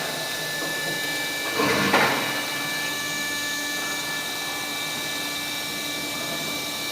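Industrial CNC band saw machine running with a steady hum and several constant whining tones. A short rush of noise comes about a second and a half in.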